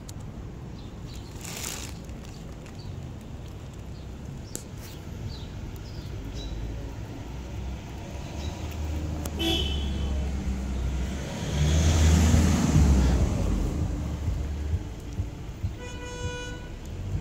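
Road traffic: a motor vehicle's low rumble swells, is loudest about two-thirds of the way through, then eases off. Near the end comes a short horn toot.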